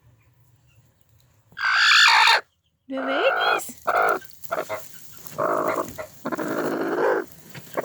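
Broody hens screeching: one loud harsh call about a second and a half in, then a run of shorter harsh calls, some rising in pitch. This screeching is the typical sound of a hen gone broody.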